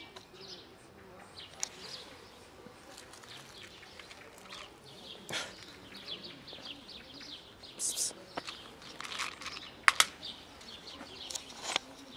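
Small birds chirping in many short, high notes, with a few sharp clicks or knocks among them, the loudest a quick pair about ten seconds in.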